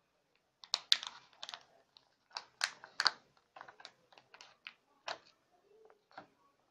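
Soaked nutmeg seeds and fingers clicking and knocking against a plastic cup of water as the seeds are scooped out: a run of irregular sharp taps in small clusters.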